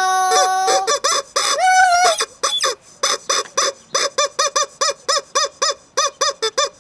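Rubber chicken toy being squeezed: two long squeals, then a fast run of short squawks at about four a second that stops near the end.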